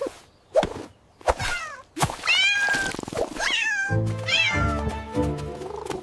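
A cat meowing several times in short separate calls that arch up and fall in pitch; music comes in about four seconds in, under further meows.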